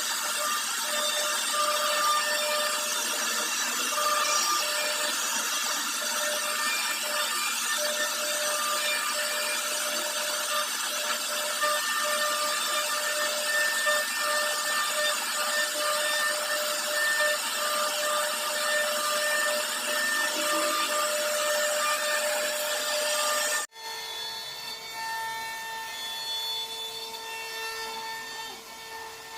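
CNC router carving a design into a wooden door: the spindle's steady whine over the rasping of the bit cutting wood. Near the end it cuts off abruptly, and a quieter machine sound with different steady tones takes over.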